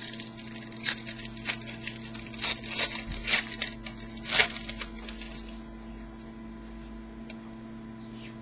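Football trading cards and their pack wrapper being handled: a quick run of sharp crackles and rustles that stops about five seconds in, leaving a steady electrical hum.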